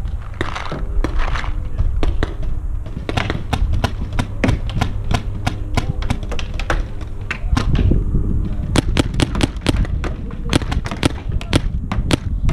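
Paintball markers firing: scattered sharp pops, then from about two-thirds of the way through a rapid string of about five shots a second, over a steady low rumble.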